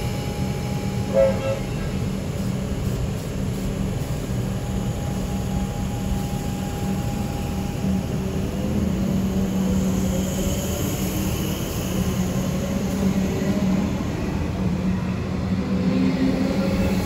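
Comeng electric suburban train pulling away from the platform, a steady low hum with a motor whine that rises in pitch as it gathers speed. There is a short sharp sound about a second in.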